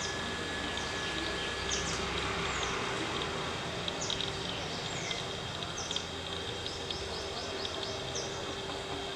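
Outdoor tree-canopy ambience: a steady, pulsing insect buzz with many brief, high, falling chirps from small birds scattered throughout.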